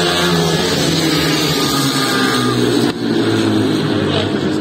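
Several ice speedway motorcycles racing round the ice track, their single-cylinder engines running loudly and steadily, the pitch shifting as the bikes go through the turns.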